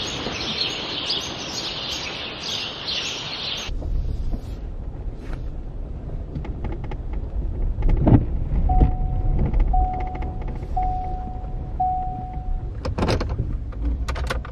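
Dense chirping of birds for the first few seconds. It then gives way to the low rumble of a vehicle driving, heard from inside the cab, where a warning chime sounds four times about a second apart. A few knocks are heard, one just before the chimes and one after.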